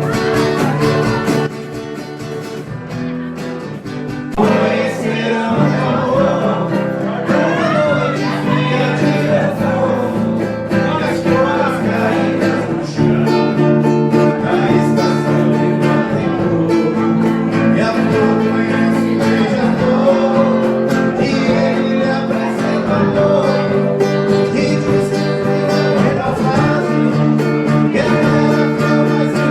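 Background music: a guitar-backed song with a singing voice. It is quieter for the first few seconds and gets louder about four seconds in.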